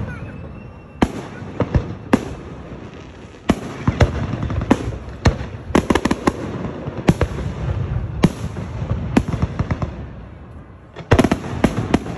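Aerial fireworks shells bursting: a run of sharp bangs with a rumble between them, a short lull shortly before the end, then a quick cluster of bangs.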